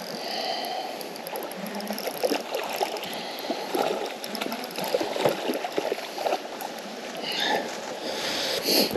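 River water rushing and gurgling, with a run of short irregular splashes and clicks through the middle.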